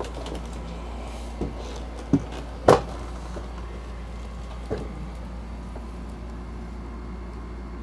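A few short knocks and clunks from the stump grinder and its shipping crate being handled, the loudest about two and a half seconds in, over a steady low hum.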